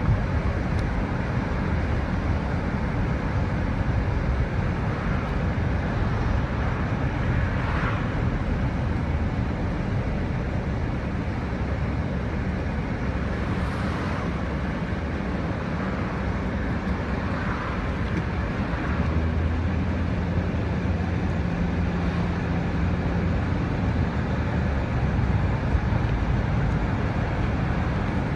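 Car driving along, heard from inside the cabin: a steady low rumble of engine and tyres on the road with wind noise, with a few brief swishes along the way.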